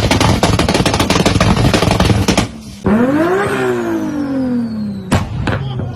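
Tuned sports car engine revving with rapid exhaust crackles and pops, then briefly quieter. A single rev follows, its pitch rising and then falling slowly, with a high whistle dropping along with it and two sharp exhaust cracks near the end.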